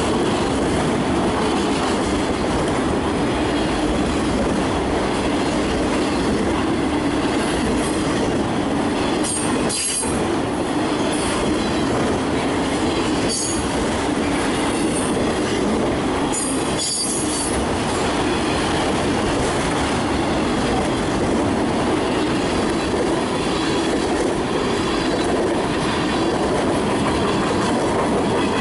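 Freight cars of a CSX mixed freight train, autoracks then tank cars, rolling past: a steady rumble of steel wheels on rail. Brief high wheel squeals come a few times in the middle.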